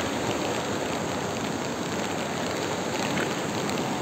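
Steady rushing noise of a muddy river in flood, mixed with falling rain.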